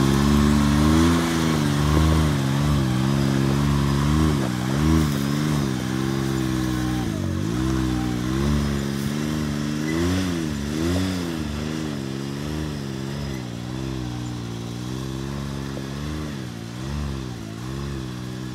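Can-Am Maverick side-by-side (UTV) engine revving up and down over and over as it crawls over rocks, growing fainter as the machine drives away up the trail.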